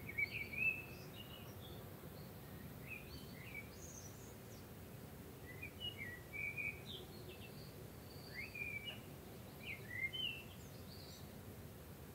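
Small birds chirping and singing: short, quick chirps and brief gliding whistles come and go throughout, over a faint steady hiss.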